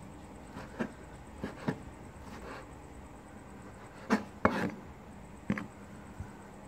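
A chef's knife slicing through cucumber tree fruit and knocking on a cutting board, in irregular single strokes, with the two loudest knocks close together about four seconds in.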